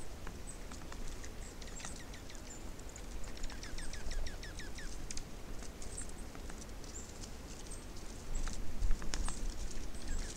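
Small birds at a feeder calling: a quick series of short descending chip notes a few seconds in, with scattered thin high calls and light clicks and taps, over a low rumble.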